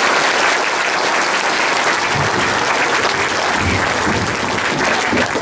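Audience applauding steadily, with low bumps and rumbles from about two seconds in as the podium microphone stand is handled and adjusted.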